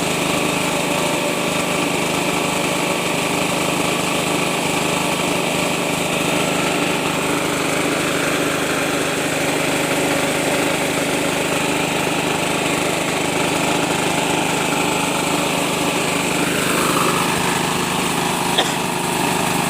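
Small single-cylinder diesel engine running steadily under load, driving a rice milling machine as it mills rice. There is a single short click near the end.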